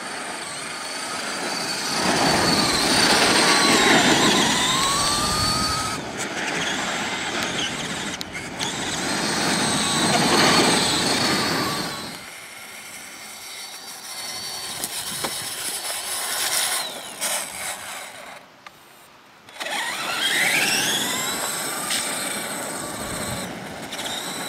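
Radio-controlled monster trucks driving fast on a dirt track: a high motor whine that rises and falls as they speed up and pass, over a hiss of tyres on dirt, swelling loud three times and cutting off abruptly between shots.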